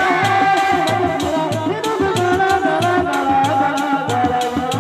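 Sundanese dog-dog drum ensemble playing a steady, fast rhythm: small frame drums struck with sticks and a large barrel drum beaten by hand, with a wavering melody line above the drums.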